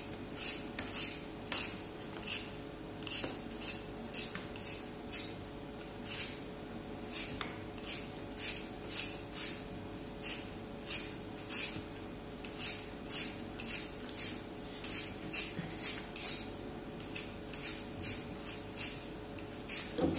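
A hand-held vegetable peeler scraping the skin off a raw potato: short rasping strokes at about two a second, slightly irregular, over a faint steady hum.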